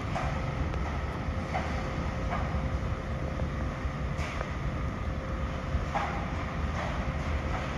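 An MRT train running on an elevated rail line: a steady low rumble with a faint steady hum and light clicks at irregular intervals.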